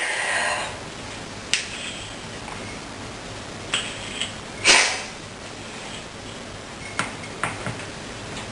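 A few small clicks and taps of objects being handled, with one short sharp breath about halfway through; the end of a cough fades out at the very start.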